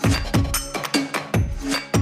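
Background music with a steady percussive beat and sustained melodic tones.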